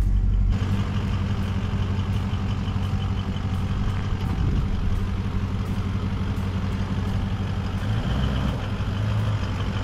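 Toyota LandCruiser's engine running steadily at low revs as the 4WD crawls along a sandy track towing an off-road caravan.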